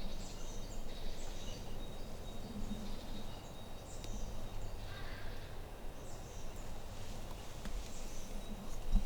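Quiet outdoor background noise with a few short, faint, high chirps scattered through it.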